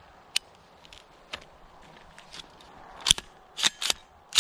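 Sharp metallic clicks and clacks from an AR-15 carbine and its sling hardware being handled: a couple of light clicks in the first second and a half, then four louder clacks close together in the last second and a half.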